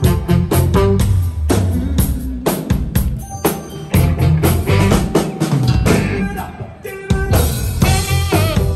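A live pop band playing, with a prominent drum kit beat over a heavy bass line.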